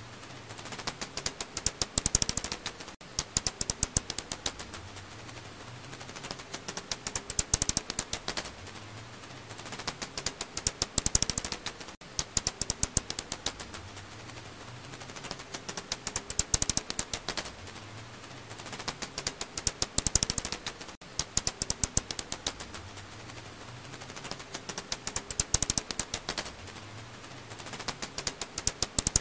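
Echolocation calls of an Alashan pipistrelle (black house bat), heard as rapid trains of dry clicks that swell into louder bursts every four to five seconds.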